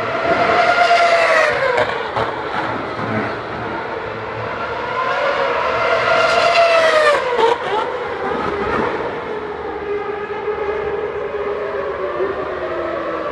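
2013 Formula 1 cars' 2.4-litre V8 engines screaming past at high revs, two cars in turn, about a second in and about six seconds in. Each car's pitch sweeps down as it goes by on the approach to Turn 1, and a fainter engine note glides slowly down through the second half.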